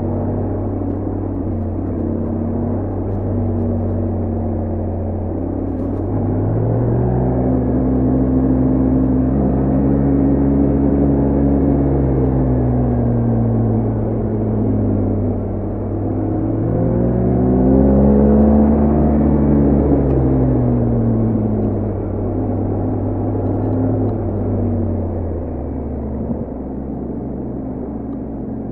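BMW R1250GS Adventure's 1254 cc boxer-twin engine and exhaust under way. The engine note climbs and falls back twice as the throttle is opened and closed, then settles to a steady low note near the end.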